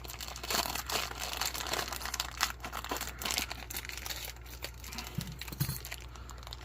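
Ration packaging crinkling and crackling as it is handled and torn open, in irregular bursts of rustling.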